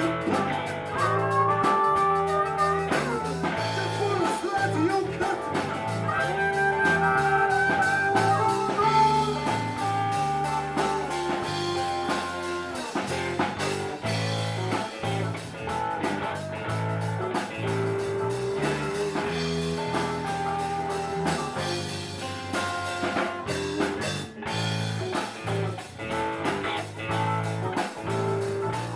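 Live blues band playing an instrumental break with no singing, led by a Stratocaster-style electric guitar, with drums behind it.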